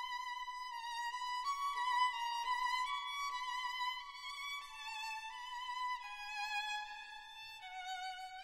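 Background music: a violin plays a slow, high melody with vibrato, its notes stepping gradually lower toward the end.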